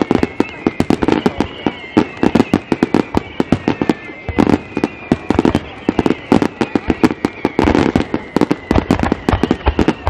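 Aerial firework shells bursting in rapid succession, many sharp bangs and crackles a second with no break. A thin high whistle drifts slowly downward underneath.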